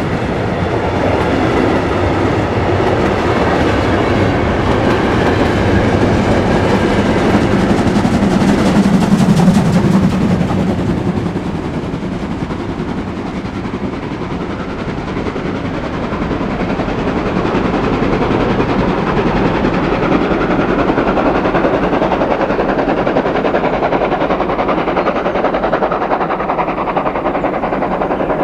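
Passenger coaches behind steam locomotive 01 2066 rolling past with wheel clatter for about the first ten seconds. After that the locomotive, working hard up the grade, is heard from farther off with its exhaust beats, growing somewhat louder again.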